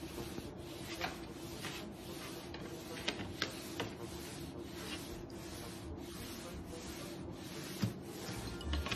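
Cloth rubbing and wiping across a wooden countertop, with a few light clicks in the first few seconds.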